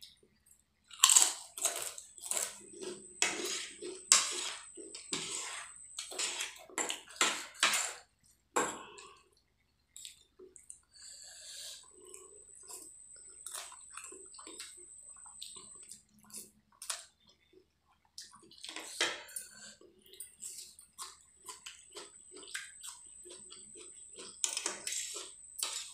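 Close-up eating sounds. A crisp potato chip is bitten and chewed in loud, irregular crunches for the first several seconds. Then come softer, wet chewing and slurping of Maggi noodles, with louder bursts of chewing about two-thirds of the way in and near the end.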